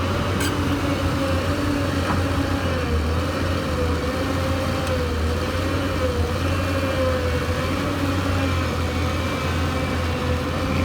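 Hyundai Robex 220-9SH excavator's diesel engine running steadily under a hydraulic whine that wavers slightly in pitch, with faint clicks about half a second and two seconds in.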